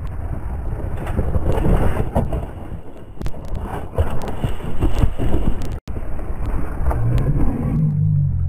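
Mountain bike rolling fast over a loose gravel track: tyres crunching and the bike rattling over stones, with wind buffeting the microphone and many sharp knocks. It ends in a fall into roadside brush, the clatter of the bike going down among the plants.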